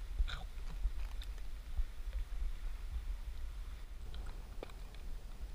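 Low wind rumble on the microphone, with a few small scattered clicks and crinkles from hands handling a fishing hook and a small plastic container.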